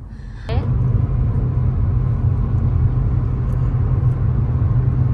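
Steady low rumble of a car on the move, road and engine noise, which starts abruptly about half a second in.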